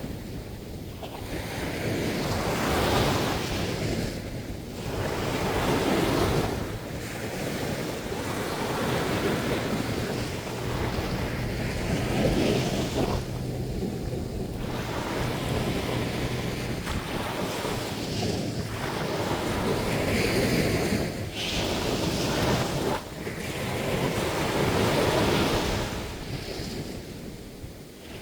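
Ocean surf washing in and out on Gyeongpo Beach, swelling and ebbing every few seconds, with wind buffeting the microphone.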